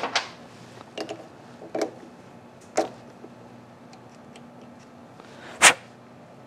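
Scattered metallic clicks and knocks as a small aluminium part is worked loose by hand from a mini lathe's three-jaw chuck and lifted out. A single louder, sharp clack comes about five and a half seconds in.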